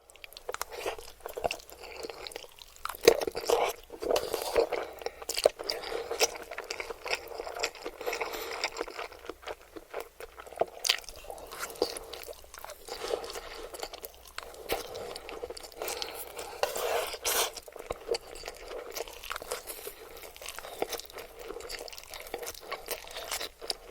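Close-miked eating of spicy noodles: wet chewing and lip smacks, with many short sharp clicks of uneven loudness.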